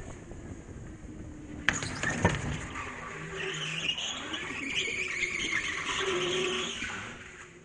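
Go-kart tyres squealing as the kart corners on the smooth indoor track floor, over the kart's low motor hum and wind on the helmet camera. Two sharp knocks come about two seconds in, and the sound fades near the end.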